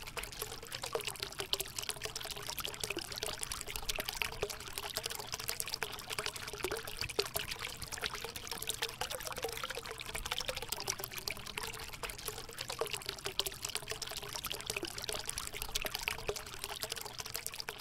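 Water trickling and bubbling steadily, full of small crackling splashes.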